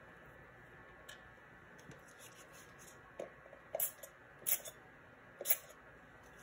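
Light taps and clicks of small craft tools being set down and handled on a hard tabletop. There are two faint ticks early on, then four sharper clicks spaced about half a second to a second apart in the second half.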